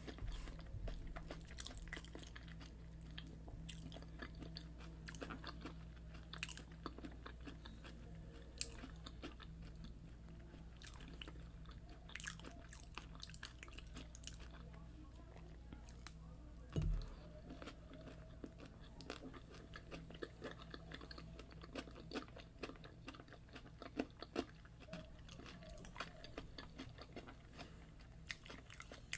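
Close-miked chewing and biting of fried yam and egg sauce: a steady run of small crunches and wet mouth clicks, over a faint low steady hum. One low thump a little past halfway.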